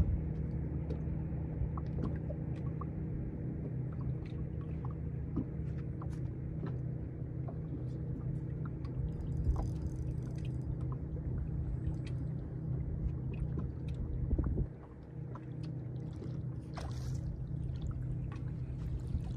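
Lake water lapping and slapping against the hull of a bass boat, under a steady low hum. The low rumble drops off suddenly about fifteen seconds in, and the hum carries on.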